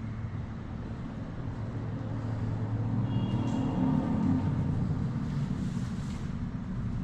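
Steady low background rumble and hum that swells a little toward the middle, with a short hiss near the end.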